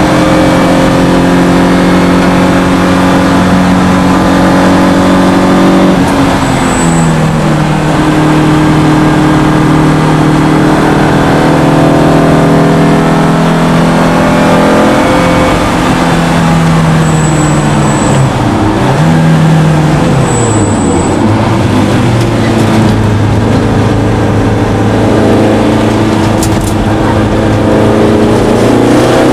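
BMW E30 M3's four-cylinder engine heard from inside the cabin, pulling hard on track; the pitch drops sharply about six seconds in, like an upshift. Around two-thirds of the way through the revs fall in several steps with short blips, as in braking and downshifting into a corner, then the engine pulls again and climbs near the end, over steady tyre and wind noise.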